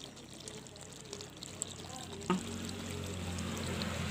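Chicken karahi gravy simmering and bubbling in a large pot, getting louder in the second half, with one sharp click a little over two seconds in.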